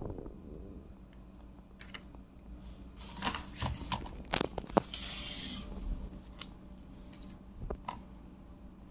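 Faint unboxing handling noises: a string of light clicks and taps in the middle, then a brief rustle of packaging, with a few more ticks near the end.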